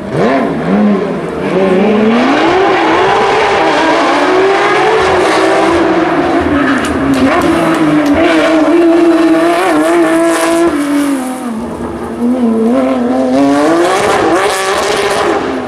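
Porsche 911 GT3 Cup flat-six racing engine at full throttle on a rally stage. The pitch climbs and drops again and again with gear changes and braking, dipping about a second in and again near the end.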